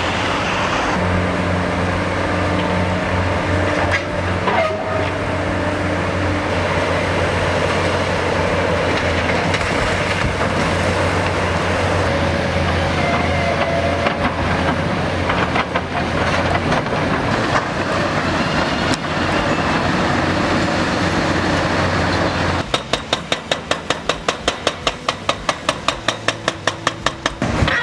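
A heavy machine's engine running steadily with a low hum. About three-quarters of the way through, it gives way to a rapid, even knocking, about four knocks a second, that runs to the end.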